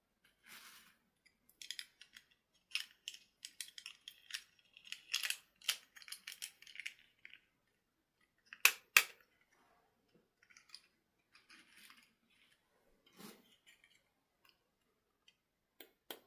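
Hands handling small plastic items: scattered crinkles and light clicks, with two sharp clicks close together about nine seconds in.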